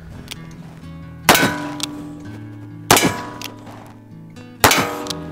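Three shots from a .36-calibre 1861 Navy cap-and-ball revolver replica firing black powder, about a second and a half apart, each with a ringing tail, over background music.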